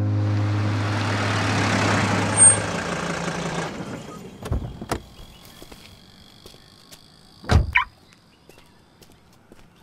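A loud hiss over a low hum that fades away over the first four seconds, then a car door: two sharp clicks as it opens, and a heavy thump as it is shut about three-quarters of the way through.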